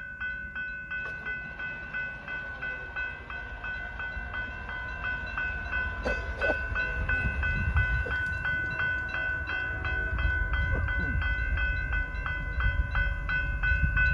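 Grade-crossing bell ringing steadily at about two strokes a second, while the low rumble of an approaching CP freight train grows louder from about halfway in.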